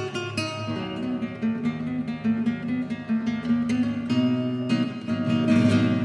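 Acoustic guitar playing a contemporary flamenco rhumba: quick plucked melody notes over bass notes, with a bright strummed chord shortly before the end.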